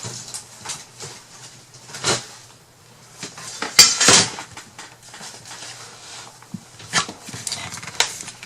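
Craft supplies being rummaged through and handled on a worktable: scattered knocks and clicks, with a louder clatter about four seconds in.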